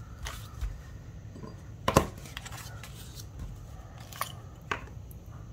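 Cardstock being handled and laid down on a wooden tabletop: several short taps and clicks, the loudest about two seconds in.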